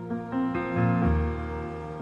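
Slow background music with held chords; a deep bass note comes in about a second in, where it swells loudest.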